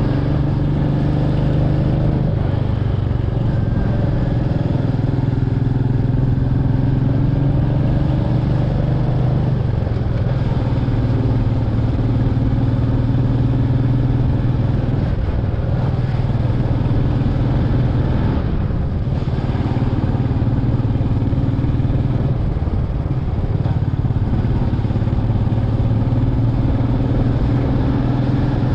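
Royal Enfield Meteor 350's single-cylinder engine running on the move, its pitch dropping and rising a few times as the throttle opens and closes, over steady road and wind rumble.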